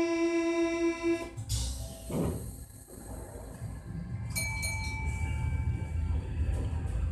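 MF67 metro train's door-closing buzzer sounding until about a second in, then the doors thudding shut with a falling hiss. A few seconds later the train starts off, with a steady whine and a low rumble building.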